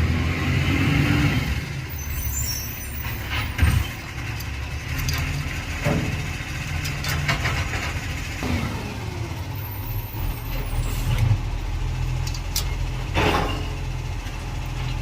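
Brake caliper and its bolts being handled and threaded in by hand, with a few sharp metallic clicks and knocks over a steady low rumble.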